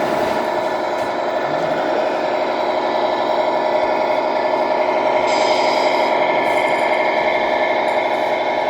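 A steady mechanical drone made of several held tones, which swells up just before and then keeps an even level: an RC scale model truck or construction machine running.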